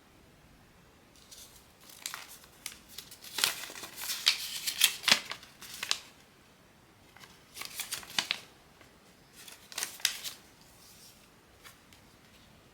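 Blind-box packaging being opened and handled, with crinkling, snipping and tearing of cardboard and plastic wrapping. It comes in three spells of crackly handling noise; the longest and loudest runs from about two to six seconds in.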